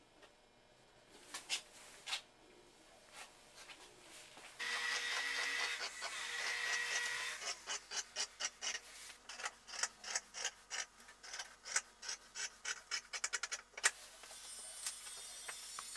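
Scissors cutting through upholstery headliner cloth: a steady rasping cut, then a long run of quick snips that come faster toward the end, followed by the cloth rustling.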